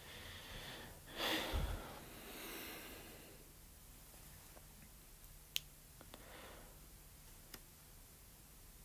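A person's short audible breath in, like a sniff, about a second in, followed by a softer breath out, against quiet room tone. Two faint sharp clicks come later.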